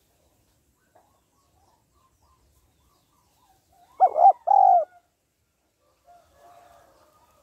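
Female spotted dove cooing: a loud two-note coo about four seconds in, then a fainter, softer coo near the end.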